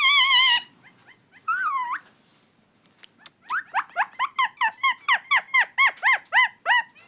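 Indian ringneck parrot calling: a loud warbling call at the start, a short call about a second and a half in, then a fast run of short, repeated chirping calls, about four a second, from halfway through.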